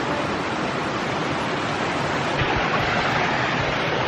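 Waterfall: falling water rushing steadily, close by.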